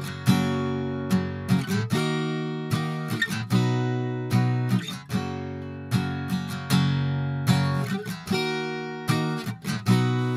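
Steel-string acoustic guitar strummed in chords, about a strum a second, with the chord changing every couple of seconds. It is heard through a cheap AmazonBasics supercardioid dynamic microphone, which sounds a bit hollow on it, lacking fullness from its scooped mids.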